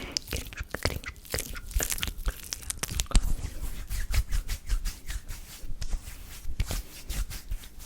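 Close-miked ASMR hand sounds: hands rubbing and fingers making quick, irregular crackling and clicking.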